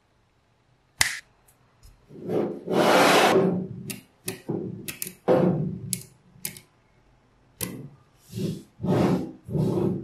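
Small magnetic balls handled on a tabletop: several sharp clicks as balls snap together, with longer rattling, scraping swells between them as slabs of balls are pressed and worked by hand. Opens with about a second of silence.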